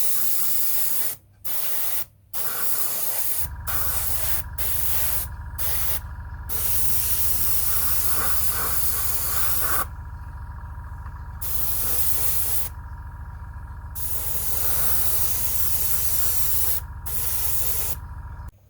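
Airbrush spraying a weathering wash, a loud hiss in repeated bursts that stops briefly each time the trigger is let off. A low hum joins about three and a half seconds in.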